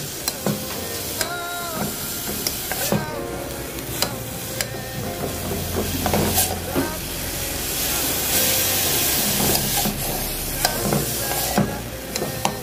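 Grated carrot and onion sizzling in olive oil in a metal pot as they are sautéed, with a wooden spoon stirring and scraping through them and now and then knocking against the pot. The sizzle swells a little about eight seconds in.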